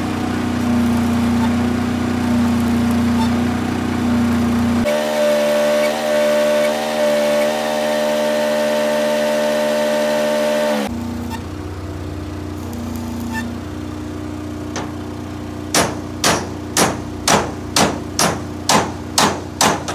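A steady droning machine hum, then in the last few seconds a hammer striking the steel deck plate of a truck's cargo bed in an even beat, about two blows a second.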